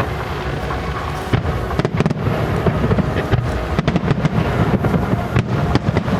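Star mine fireworks barrage: a rapid stream of overlapping booms and sharp crackling bursts, growing denser about a second and a half in.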